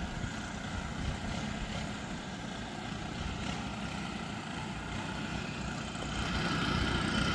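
Gas backpack leaf blowers, two Echo units and a Stihl BR 800, running steadily with a whining engine note that grows louder about six seconds in.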